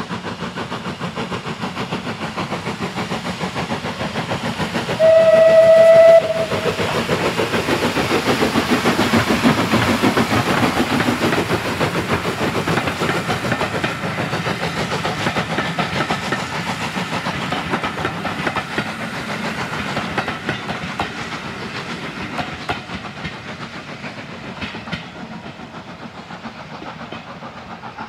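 Steam tank locomotive working a passenger train past at speed, its exhaust beating rapidly, with one short whistle blast about five seconds in. The beats swell as it passes close by, then fade as the coaches run away into the distance.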